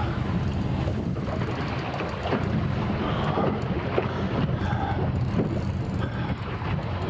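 Wind rumbling steadily on the microphone over water around a small boat, with scattered small ticks and splashes.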